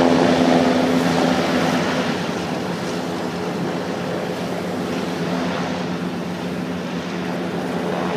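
Hovercraft running away over the water: a steady engine-and-propeller hum with a strong held tone that drops in pitch about two seconds in and slowly fades as the craft recedes.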